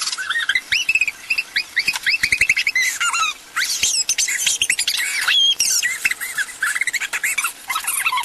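A shouting voice sped up and played in reverse, heard as rapid, high, chirp-like squeaks that glide up and down several times a second, with brief gaps about three and a half and five seconds in.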